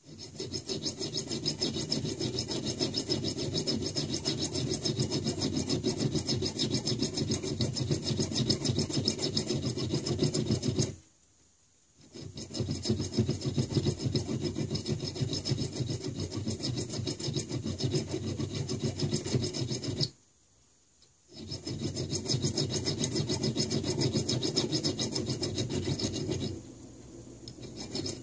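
Small flat hand file rasping back and forth across a tiny metal screw blank clamped in a brass screw holder. The strokes run on steadily, stop briefly about 11 and 20 seconds in, and go quieter about two seconds before the end.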